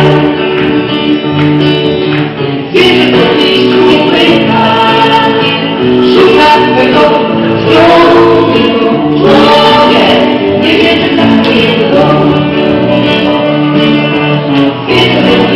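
Live band playing a song: three women singing together, backed by acoustic guitar, bass guitar and keyboard.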